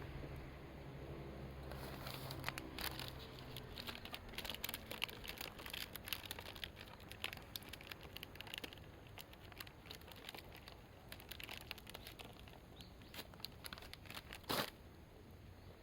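Campfire crackling and snapping in irregular small pops, with one louder snap near the end. A low steady hum stops a few seconds in.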